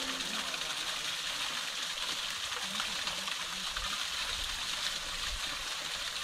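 Steady rushing hiss of running water.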